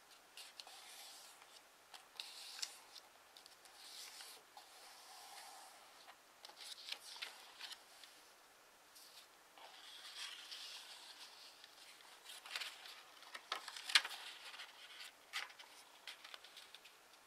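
A sheet of origami paper handled and folded by hand: irregular rustling and crinkling as it is lifted and slid, with a few sharper crackles as folds are pressed in, the sharpest about three-quarters of the way through.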